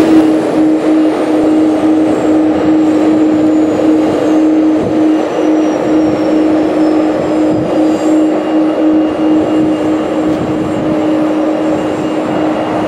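Jet aircraft engines running loud and steady, with a high whine falling slowly in pitch as the aircraft moves past, and a steady hum that fades away about two thirds of the way through.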